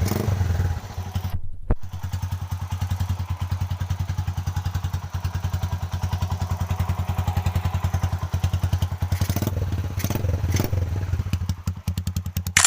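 Rusi 125 motorcycle with a 62 mm big-bore kit and an aftermarket V-MAX exhaust pipe, idling with a rapid, even train of exhaust pulses. The sound cuts out for a moment about a second and a half in.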